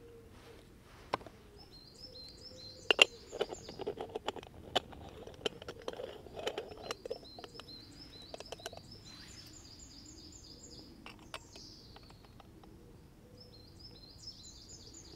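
Sharp metal clicks, taps and light scraping as an aluminium moka pot is handled and put together, busiest in the first half and loudest about three seconds in. A small bird sings short repeated high trills in the background, several times.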